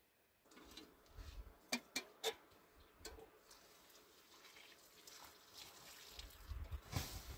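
Water poured from a metal kettle onto campfire embers, hissing faintly as it puts out the fire. A few sharp metal clinks come about two seconds in, and low knocks near the end.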